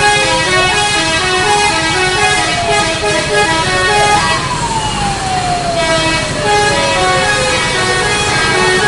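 Indonesian bus 'telolet' multi-tone horn playing a quick tune of short notes. Over it a long tone slides slowly down in pitch, jumps back up about four seconds in and slides down again.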